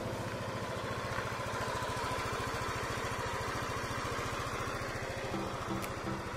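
Yamaha Aerox scooter's single-cylinder engine idling with a steady, even pulse. Background music with a simple melody comes in near the end.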